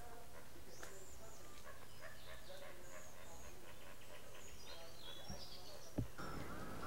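Outdoor forest ambience with many short bird chirps and calls scattered throughout. About six seconds in there is a thump, and the background turns noisier with repeated arching calls.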